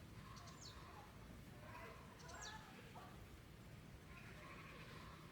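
Faint bird chirps: a few quick high calls, about half a second in and again around two and a half seconds, over a low background hum.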